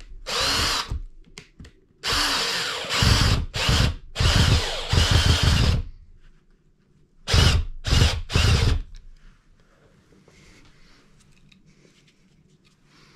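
Cordless drill driving into the wooden ceiling boards overhead, its motor whining up at the start of each run. There is one short burst, then a longer run of several pulses, then three quick bursts, and after that it falls quiet.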